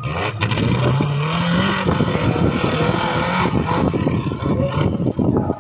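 A 1000cc-class off-road 4x4's engine revving hard as it climbs a dirt track, its pitch rising over the first two seconds and then held at high revs with a dense, crackling, uneven note.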